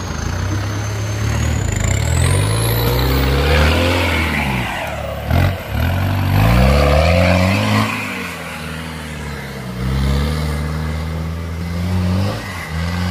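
Off-road jeep's engine revving hard and easing off again and again as it claws up a steep dirt and rock slope, its pitch rising and falling several times. There is a brief drop in the engine note about five and a half seconds in.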